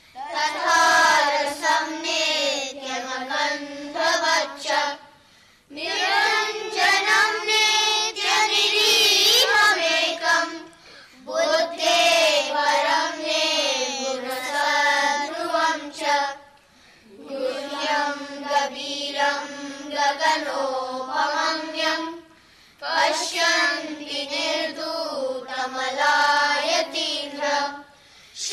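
A group of children chanting shlokas in unison, sung in melodic phrases of about five seconds with short breaks between them.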